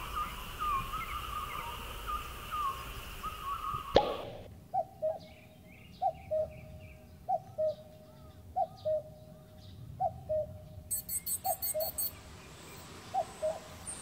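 Common cuckoo calling its two-note 'cuck-oo', about seven times at roughly one and a half second intervals. The first few seconds, before the cuckoo starts, hold short bird chirps over a steady high hiss.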